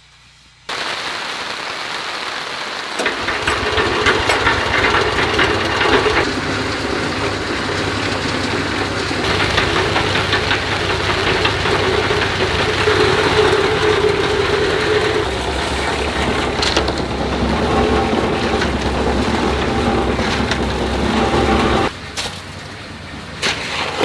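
A steady hiss comes in, then about three seconds in the small engine of a portable cement mixer is heard running steadily as its drum turns a load of concrete mix. The engine drops out sharply near the end.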